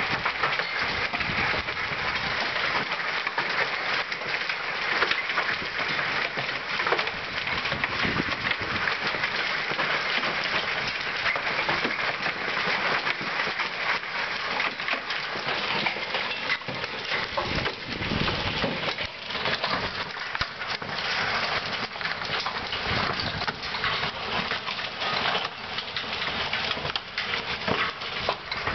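Hail mixed with heavy rain pelting a paved patio: a dense, steady clatter of countless small impacts over a hiss of falling water.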